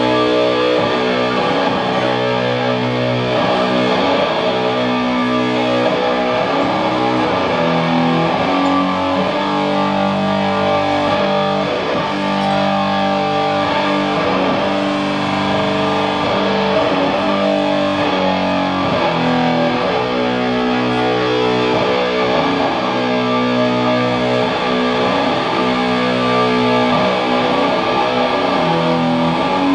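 Doom metal played live: heavily distorted electric guitars and bass grinding through slow, long-held low chords at a steady loud level, with no vocals.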